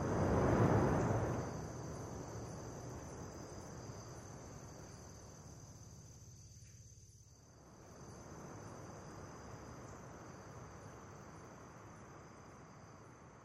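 A steady insect chorus holds two unbroken high tones throughout. Under it runs a soft rushing wash that is loudest in the first second or so, fades, dips briefly around the middle and swells again.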